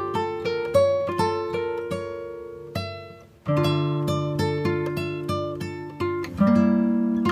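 Background music: an instrumental tune of plucked string notes, one after another, that briefly dies away about three and a half seconds in before starting again.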